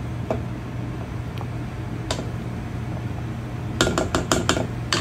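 Spatula working choux pastry dough in a stainless steel mixing bowl: a few light knocks, then a quick run of about six clinks near the end as it strikes the bowl. A steady low hum sits underneath.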